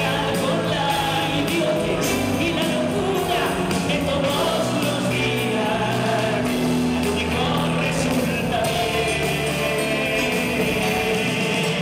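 Live rock band playing: keyboards, electric guitar, bass guitar and drums.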